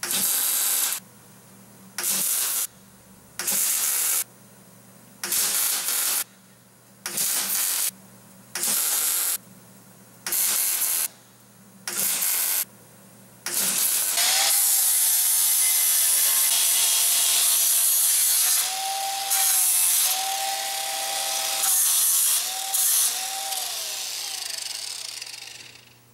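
About eight short welding bursts, each under a second and roughly one every second and a half, with a steady electrical hum between them. Then, about halfway in, an angle grinder runs continuously on the weld, its whine wavering, and stops just before the end.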